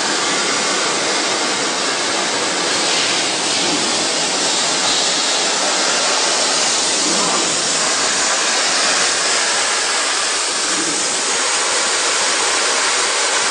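CNC machining center running a drilling cycle: a loud, steady rushing hiss that holds level without a break.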